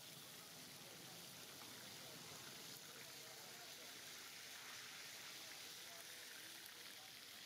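Fish deep-frying in a large pan of hot oil: a faint, steady sizzle.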